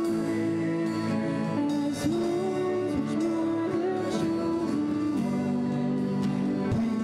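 A worship song played live by violin, acoustic guitar and grand piano, with a voice singing a slow melody in long held notes.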